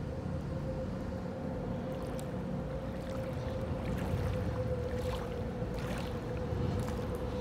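A steady motor hum holding one constant tone over a low rumble, with a few faint ticks or splashes over it.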